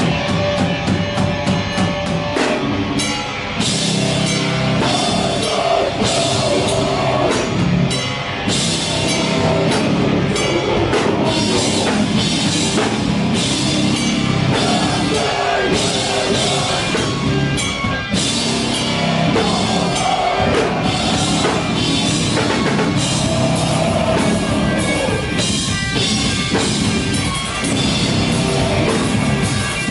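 A loud live heavy rock band playing in the room: distorted electric guitars, bass and a drum kit with crashing cymbals. A held guitar note near the start gives way to the full band with drums about three seconds in.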